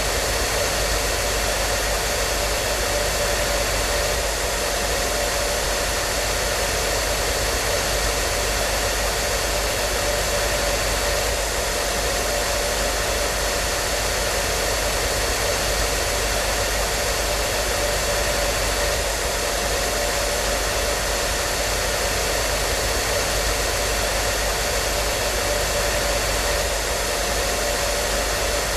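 Hair dryer running steadily: an even rushing airflow with a constant motor hum and a few steady whining tones.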